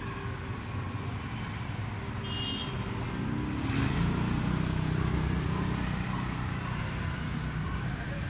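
Street traffic, mostly motorbike engines, running steadily. It grows louder about three and a half seconds in.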